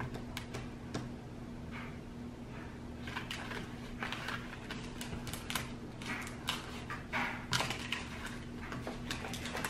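Scattered soft taps, clicks and squishes of hands and a plastic spoon working thick oobleck in bowls, with a faint steady hum underneath.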